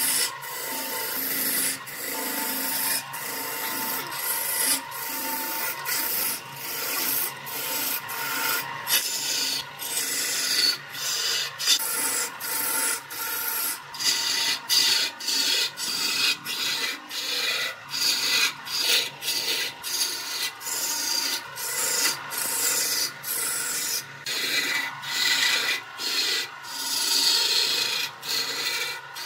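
Steel turning chisel cutting into a spinning wooden workpiece on an electric wood lathe: a rough scraping, shaving noise in short strokes, breaking off briefly about twice a second as the tool is worked along, over a faint steady hum.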